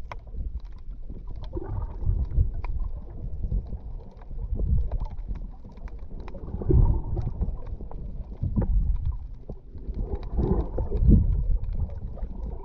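Muffled underwater rumble and sloshing of sea water picked up by a GoPro HERO8 held underwater, swelling and fading every couple of seconds, with faint clicks and crackles throughout.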